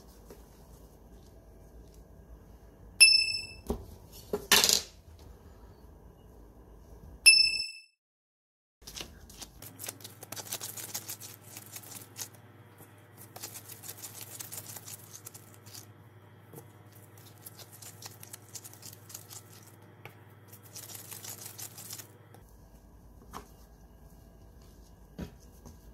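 Two short, loud electronic beeps about four seconds apart, with a louder knock between them, as dough portions are weighed on a digital kitchen scale. Then come repeated bouts of rubbing and rustling as gloved hands roll soft bread dough into balls on a wooden board.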